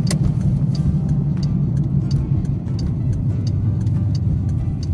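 Steady low rumble of road noise inside a moving car's cabin, with background music carrying a light ticking beat about every two-thirds of a second.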